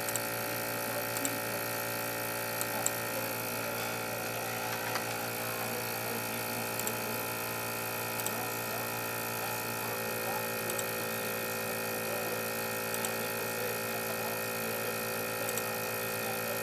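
BGA rework station's fan running steadily with a hum of several steady tones while it heats a laptop GPU to about 230 °C to lift the chip off; the tone shifts slightly about ten seconds in, with faint ticks now and then.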